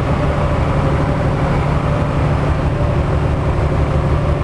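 Steady road and engine drone heard inside a vehicle cruising at highway speed, with a low rumble and a faint steady tone above it.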